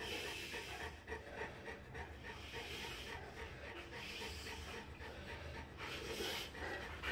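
A newborn Dogue de Bordeaux puppy breathing quickly, with soft, quickly repeating little pitched sounds, several a second, over the breath noise.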